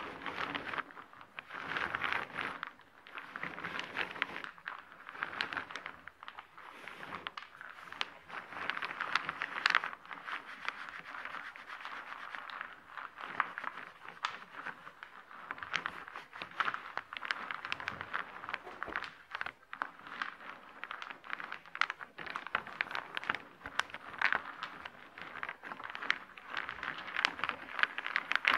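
Hands sliding and shuffling a tabletop layer of small round wooden discs: the pieces clatter and scrape against each other and the surface in a dense, continuous clicking.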